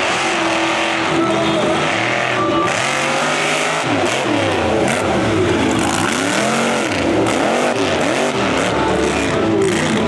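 Mud truck's engine revving hard again and again, its pitch sweeping up and down about once a second.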